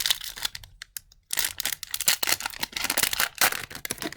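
Wrapper of an Upper Deck MVP hockey card pack being torn open and crinkled: a short rustle, a brief pause, then a dense run of crackling from about a second in.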